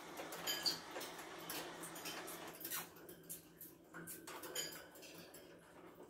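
Cockatiel moving about its wire cage: irregular light clicks and metallic rattles of claws and beak on the bars and perch, busier in the first half and thinning out after about three seconds.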